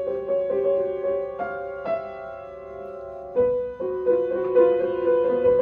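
Piano playing a slow passage of held notes and chords that shift every half second or so, with a new chord struck firmly about three and a half seconds in.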